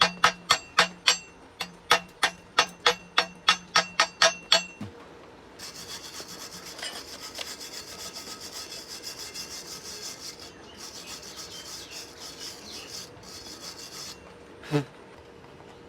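Metal strikes about three times a second with a ringing tone, typical of a chipping hammer knocking slag off a fresh stick weld. After about five seconds they give way to a steady high scrubbing with short breaks, a wire brush cleaning the weld. One knock comes near the end.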